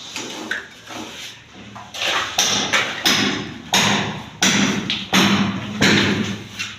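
A series of sharp knocks, about one or two a second, each ringing out briefly, over a low steady hum.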